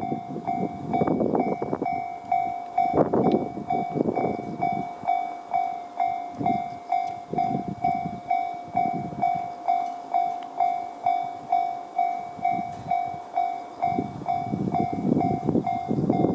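Level-crossing alarm sounding the JR standard electronic bell: one tone struck evenly a little under twice a second. A 115-series electric train rumbles over the crossing, loudest in the first few seconds and again from near the end.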